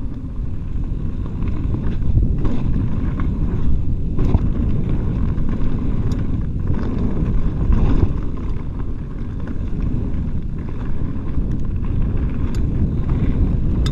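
Mountain bike ridden fast over a dirt singletrack: a steady low rumble of wind on the microphone and tyres on dirt, with the bike clattering in scattered clicks and knocks over bumps.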